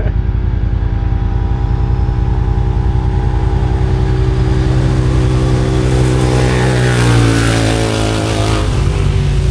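Side-by-side UTV at full throttle on a top-speed run, passing close by about seven seconds in, its engine note dropping in pitch as it goes past. A nearby engine idles steadily underneath.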